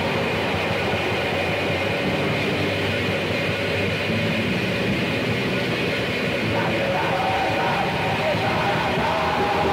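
Raw lo-fi black metal with an old-tape sound: a dense, noisy wall of distorted guitar that never lets up. A higher melody line comes in about two-thirds of the way through.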